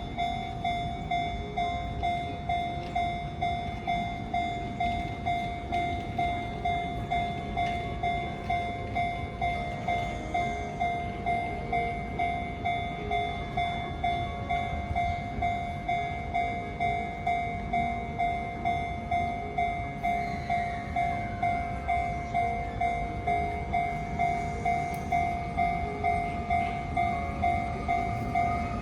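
Japanese railway level-crossing warning bell ringing, a steady repeating clang at a little under two strikes a second, with a low rumble underneath. The bell is the signal that a train is approaching the crossing.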